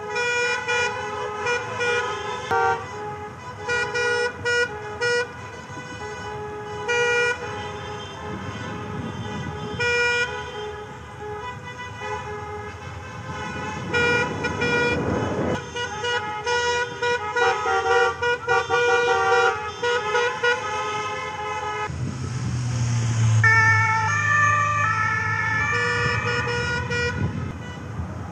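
Car horns of a driving convoy honking, many short and longer toots from several cars overlapping over traffic noise. About two-thirds through, a louder, lower-pitched horn sounds for a few seconds.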